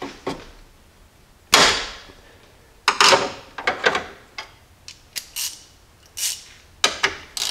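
Hand tools and loose metal parts knocking and clinking under the hood as a small bolt is undone and set aside: a series of sharp, irregular knocks and rattles, the loudest about one and a half seconds in.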